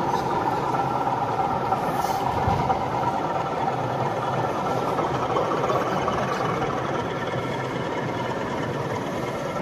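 Model diesel locomotive running slowly along a layout, giving a steady engine-like drone over the general background noise of an exhibition hall.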